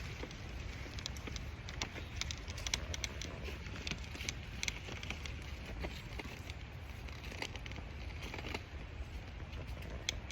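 Footsteps on a walk, crunching through dry leaves and twigs in irregular crackles and clicks, over a steady low rumble.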